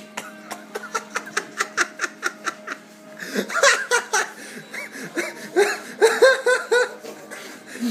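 Hearty laughter: breathy snickering pulses at about four or five a second, breaking about three seconds in into louder, fuller laughs.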